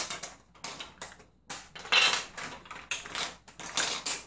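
Plastic LEGO Duplo train track pieces and bricks clattering against each other and the wooden tabletop as they are pushed around and sorted by hand, in irregular bursts with short pauses between.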